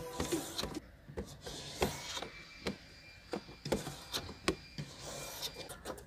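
Light, irregular clicks and knocks with rubbing as the inside of a car windshield is worked on during a window tint installation, hands and a cloth working against the glass and dashboard.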